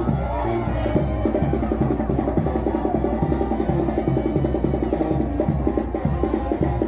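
Band music with a busy, steady drum beat and a low bass line stepping from note to note.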